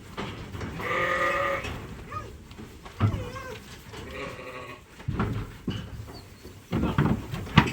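Dorset-cross ewes bleating: one long wavering bleat about a second in, then shorter bleats around three and four seconds, with several dull thuds between them as the sheep are loaded onto a livestock trailer.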